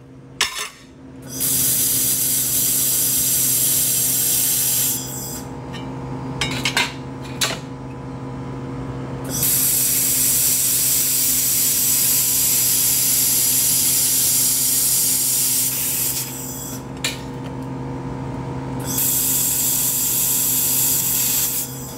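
Handheld laser welder welding galvanized steel tube onto a thick stainless steel plate: three passes of several seconds each, each a loud hiss that starts and stops abruptly, over a steady machine hum. A few short clicks fall between the passes.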